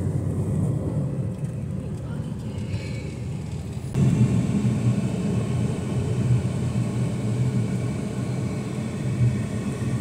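Steady road and engine rumble of a car driving along a highway, heard from inside the car, getting louder about four seconds in.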